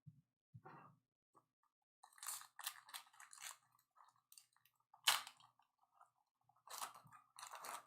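Faint rustling and clicking of trading cards being handled and sorted, with a sharper snap about five seconds in.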